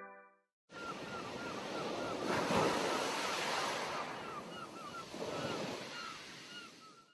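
Ocean surf, waves washing in and swelling twice, with a run of short high chirps over the wash. It fades away near the end.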